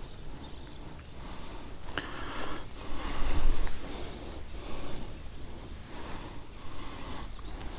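Steady high-pitched insect drone, with faint irregular rustles and knocks recurring every half second or so.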